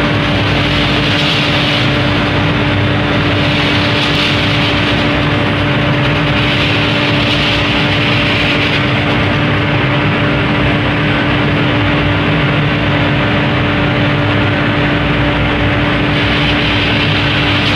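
High-speed 3D CNC foam-cutting machine running: a steady, constant-pitch motor hum over dense noise, with the hiss swelling and easing every few seconds.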